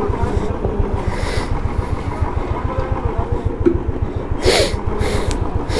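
Royal Enfield single-cylinder motorcycle engine idling with a steady, even low beat. A couple of short hissing noises come near the end.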